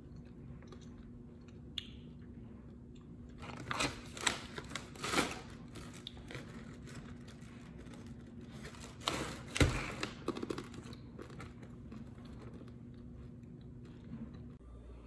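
Plastic snack pouch of HBAF wasabi almonds crinkling as it is handled and turned over, in two short bursts of crackling about four and nine seconds in.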